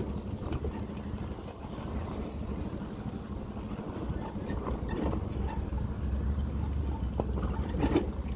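Motorcycle engine running steadily at low speed over a rough dirt track, with a few knocks and rattles from the bike over the bumps, the loudest near the end.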